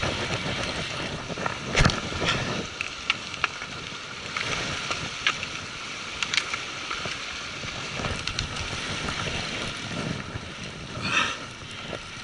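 Wind on the microphone and sea noise, with scattered clicks and a knock about two seconds in from the rod and reel being worked while a hooked fish is played.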